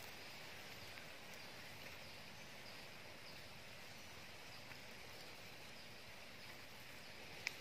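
Faint steady outdoor background hiss with a few faint, short high chirps, and one sharp click near the end.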